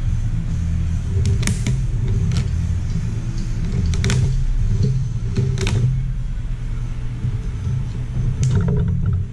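Oil filter cutter being worked around a spin-on oil filter can held in a vise, giving a few sharp metallic clicks and scrapes as the cutter is turned. Under it, a steady low hum, the loudest thing throughout.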